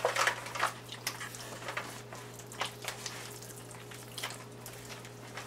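Hands rubbing olive oil into a rack of raw pork spare ribs: irregular wet squelches and slaps of palms on oily meat.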